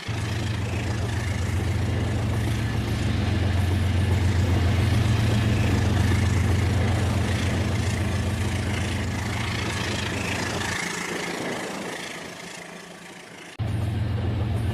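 RailKing model train running with a steady engine-like hum that fades away about eleven seconds in, then cuts back in abruptly near the end.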